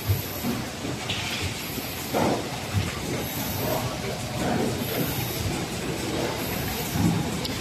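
Automatic cartoning and packing line machinery running, with a steady mechanical clatter and a short hiss repeating about every second and a half in time with the machine's cycle.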